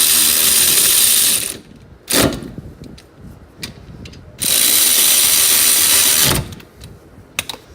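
Power ratchet running in two bursts of about two seconds each, driving rear brake caliper bolts down tight, with a short metal clank between the runs.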